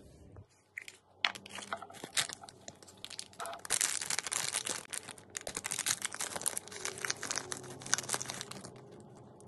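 A few sharp plastic clicks as a toy surprise capsule ball is pulled apart, then a crinkly foil blind bag crinkling and tearing as it is handled and ripped open.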